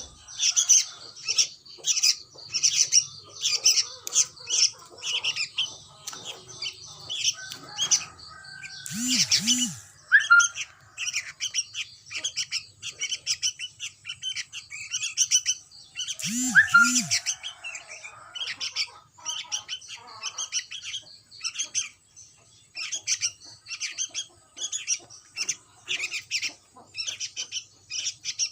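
Young sooty-headed bulbuls chirping in a rapid, unbroken string of short high calls. Twice, near nine and sixteen seconds in, a brief louder burst of noise cuts through the chirping.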